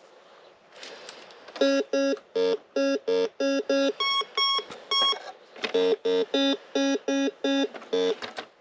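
Metal detector beeping over and over, about three short tones a second. The beeps are mostly low-pitched, with a few higher-pitched beeps in the middle and a short break. It is chattering without a target, which the owner puts down to a dying battery.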